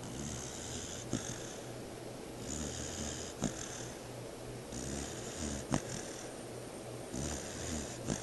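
Four-month-old pit bull puppy snoring in deep sleep: a slow, even rhythm of four hissing breaths, each ending in a short click.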